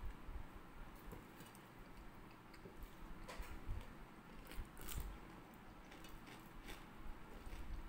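Eating by hand from a thali: quiet chewing with scattered crisp clicks of bites and fingers on the plates.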